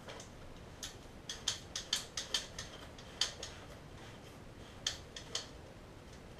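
Plastic silencer being twisted onto the barrel of a Double Eagle M41K1 airsoft rifle: a run of sharp plastic clicks, closely spaced in the first couple of seconds, then a few scattered clicks.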